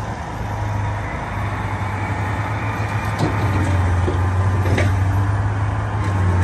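Caterpillar 775E off-highway haul truck's V12 diesel engine running steadily with a low drone as the truck, loaded with scrap metal, moves off. Two short faint clicks come around the middle.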